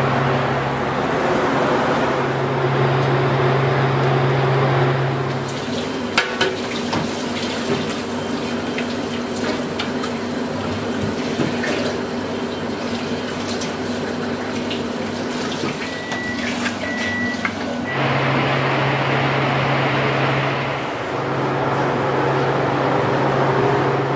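Eggs cracked by hand and separated over stainless-steel pans, with sharp shell cracks and clicks, over a steady hum and rushing noise. The hum eases off in the middle, while the cracking is heard most clearly, and comes back near the end.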